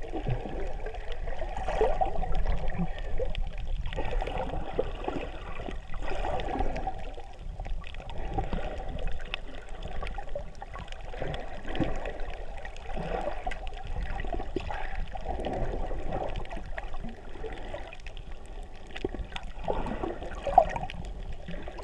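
Water sloshing and gurgling heard underwater, swelling and fading every couple of seconds, with a brief louder knock near the end.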